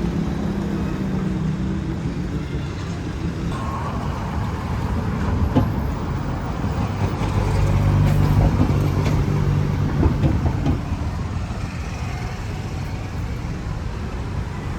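A motor vehicle's engine running with road noise; its low hum swells, loudest about eight seconds in, then eases off.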